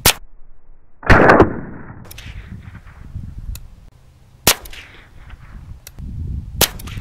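Gunshots at a shooting range: a sharp crack at the start, a louder, longer cluster of cracks about a second in, then single shots about four and a half and six and a half seconds in.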